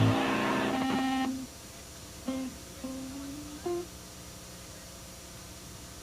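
Guitar music ringing out and stopping about a second and a half in, followed by a few quiet single guitar notes picked idly.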